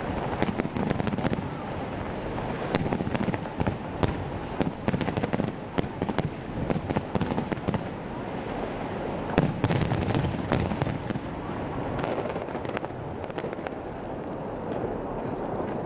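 Fireworks going off in rapid succession: a dense crackle of bangs and pops, heaviest about nine to eleven seconds in.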